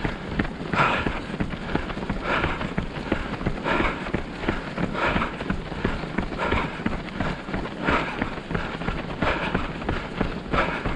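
A runner's footsteps and breathing in a steady rhythm mid-race, picked up by a camera the runner carries, with a steady rumble of movement on the microphone.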